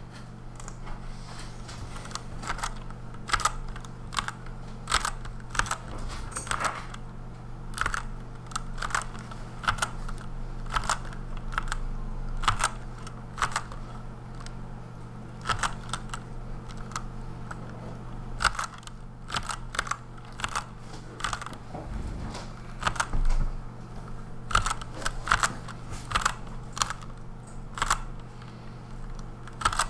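Fast typing on a Redragon Kumara K552 mechanical keyboard with lubed Outemu Red linear switches: rapid, irregular runs of key clicks and keycap clatter over a steady low hum.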